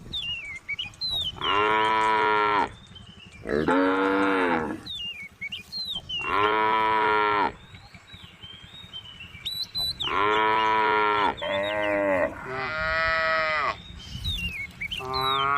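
Cows mooing over and over: about seven long, pitched moos of roughly a second each, with short pauses between them.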